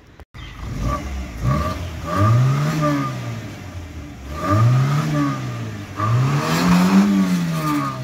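Toyota Corolla engine revved three times through its dual-tip exhaust, each rev climbing and falling back to idle, the last one highest.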